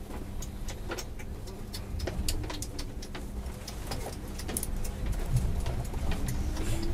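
Yurikamome rubber-tyred automated guideway train running, heard from inside the cabin as it pulls away: a steady low rumble with scattered clicks and rattles. Near the end the drive's whine starts to rise in pitch as the train gathers speed.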